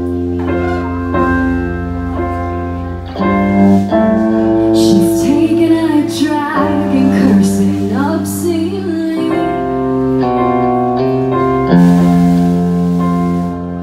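Live band music: a woman sings over piano chords from a Roland stage keyboard, with electric guitar and cymbal strokes.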